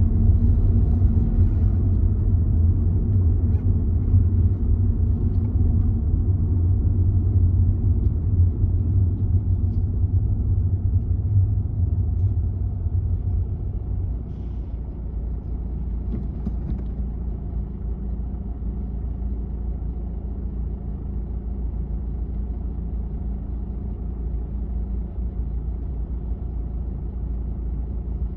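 Car running in traffic: a steady low rumble of engine and road noise that eases about halfway through as the car comes to a stop behind a bus, then settles to a quieter, steady idle.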